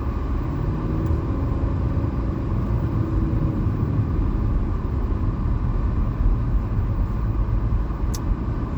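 Steady low rumble of a car's engine and road noise heard from inside the cabin while driving, with a single sharp click near the end.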